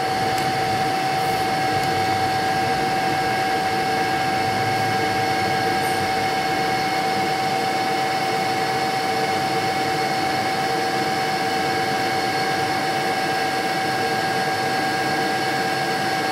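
Milling machine spindle running at a steady speed with a steady whine, while a spotting drill is fed into a broken M4 screw to spot its centre.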